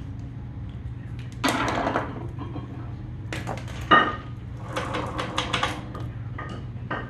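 Metal parts and tools being handled: a scrape, quick clicks, one sharp ringing metal knock about four seconds in, then a rattling clatter. A steady low hum runs underneath.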